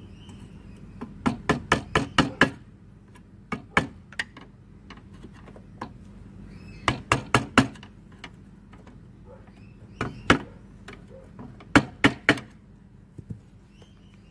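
Screwdriver knocking and prying at a lawnmower's metal muffler. It comes in about five quick bursts of sharp clicks and knocks, with pauses between.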